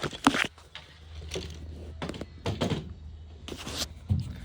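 A few irregular knocks, thunks and rubbing scrapes from a rubber window seal being pressed and worked onto a van's pop-out window, over a faint steady low hum.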